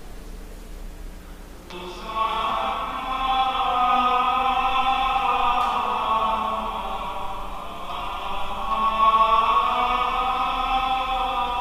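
Church singing, chant-like, starting about two seconds in with long held notes that shift slowly in pitch.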